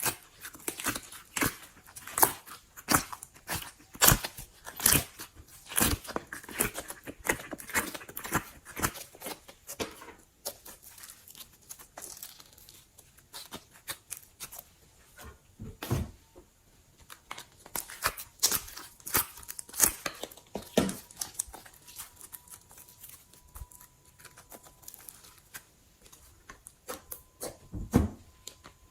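Slime being squished by hand, giving irregular sharp pops, clicks and crackles. They come thick and fast at first, thin out for a while, pick up again, and end with one louder pop near the end.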